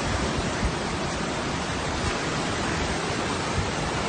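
Steady rushing noise of hurricane wind and choppy floodwater, with gusts buffeting the microphone as low, uneven rumbles.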